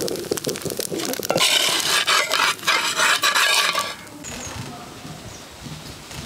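Metal spatula scraping against a clay odu pan to work a cooked odupale (sponge dosa) loose, with clicks at first and a loud, continuous rasping scrape from about one and a half to four seconds in, then lighter clinks.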